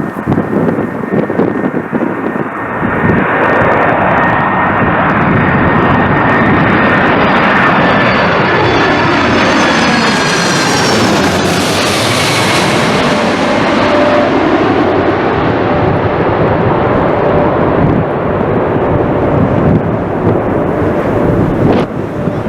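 Boeing 747-400 freighter's four jet engines on landing approach: the jet noise swells, peaks as the aircraft passes about ten seconds in with a high whine falling in pitch, then carries on steadily as it moves away.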